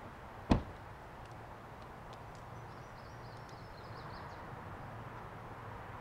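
A single sharp knock about half a second in, far louder than anything else, over a faint low rumble from the distant approaching steam locomotive, with faint high chirping in the middle.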